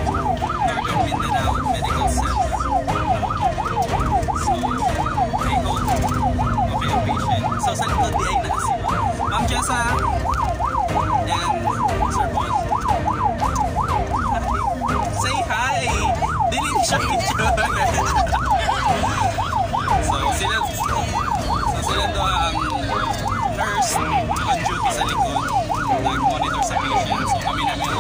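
Ambulance siren on a fast yelp, its pitch sweeping up and down about four times a second, heard from inside the ambulance cab over the engine and road rumble.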